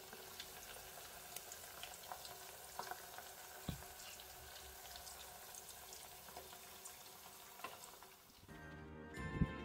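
Chips deep-frying in hot oil in a stainless steel pot: a faint steady sizzle with scattered small pops and crackles. Background music comes in near the end.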